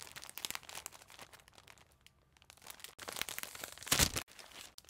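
Clear plastic bag crinkling as it is handled: scattered crackles at first, a short pause, then more crinkling with a louder rustle about four seconds in.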